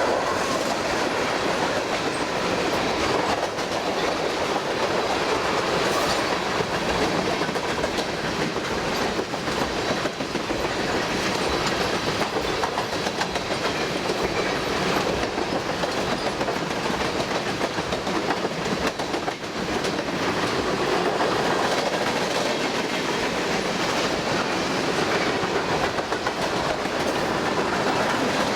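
Cars of a long freight train rolling past, a steady rumble of steel wheels with clickety-clack over the rail joints.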